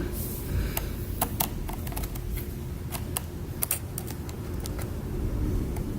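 Laptop keyboard clicking irregularly as a small curved metal pick works under the keycaps, prying out trapped debris.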